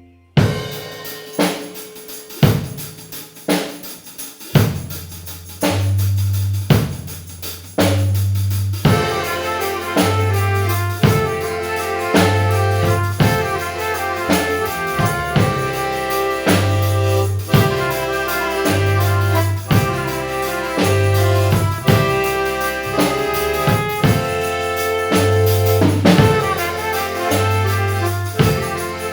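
Background music: a drum beat opens, a bass line comes in after about four seconds, and more instruments join at about nine seconds in a steady groove.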